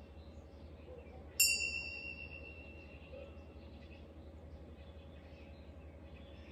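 Pair of tingsha cymbals struck once about a second and a half in, giving a clear high ring that fades away over a couple of seconds.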